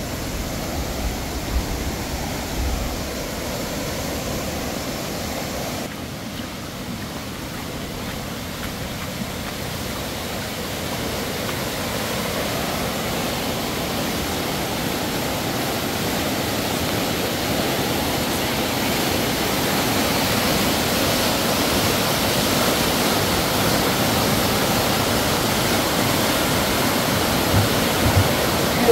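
Rushing water of a river in flood, swollen by heavy rain: a steady, loud rush that grows louder and brighter through the second half.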